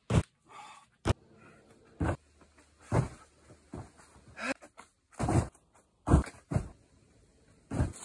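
A climber's short, forceful breaths and grunts of effort, about ten sharp bursts a little under a second apart.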